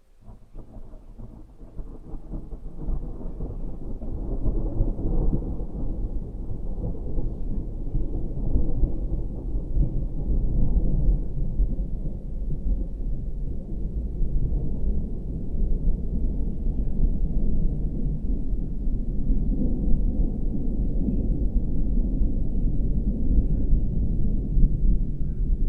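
Low rolling thunder of a building storm, a continuous deep rumble that swells up over the first few seconds and then rolls on steadily.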